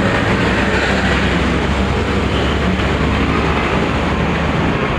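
A train passing close by: a loud, steady rumble.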